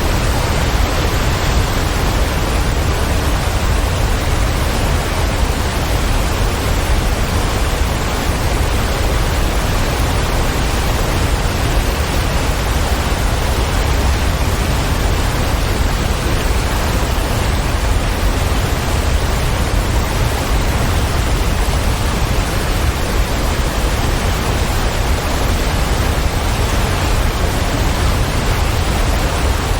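Waterfall: a steady, even rush of falling water, heaviest in the low end.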